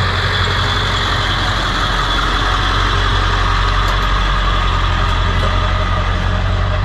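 Ford F350's 7.3 Power Stroke diesel truck running steadily, a strong low rumble under a wide, even rush of noise.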